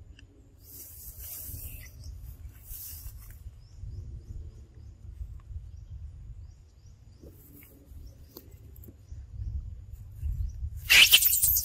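Outdoor ambience: a steady low rumble of wind on the microphone, with a couple of brief hissy rustles early on. About a second before the end, a loud crackling rustle sets in.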